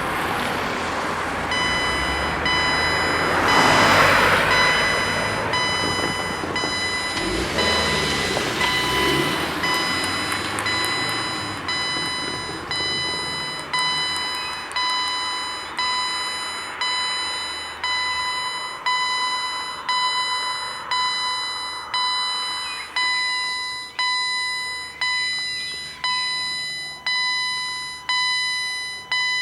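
Danish level-crossing warning bell ringing with a bright metallic tone, struck in steady strokes a little over once a second that each ring out. The crossing is being closed for an approaching train. A passing vehicle swells up over the bell about four seconds in, and again briefly near eight seconds.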